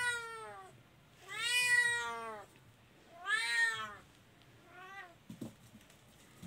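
Tabby kitten crying with long, drawn-out meows, three in a row, each rising then falling in pitch, then a shorter, fainter fourth one. A few light knocks follow near the end.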